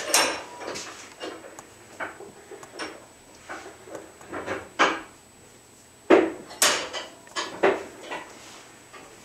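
Irregular light knocks and clatters, about a dozen spread unevenly over the seconds, the loudest about six seconds in.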